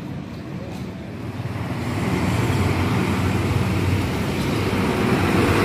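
Diesel engine of a green express bus pulling out of a bus terminal exit, its low rumble growing steadily louder as it draws close.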